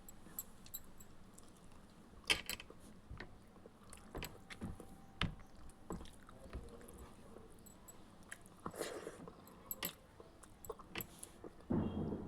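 Close-miked chewing and mouth sounds of someone eating egg curry and rice: irregular wet clicks and smacks, with a louder smack about two seconds in and a denser burst of chewing near the end.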